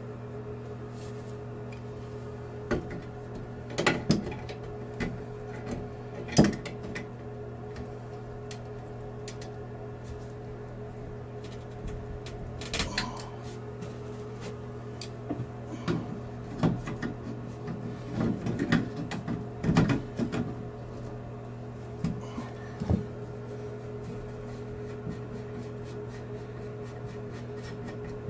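Adjustable pliers clicking and knocking against a chrome sink drain pipe as its slip nuts are loosened. The knocks are scattered, the loudest about six seconds in, with a busier run in the second half, over a steady low hum.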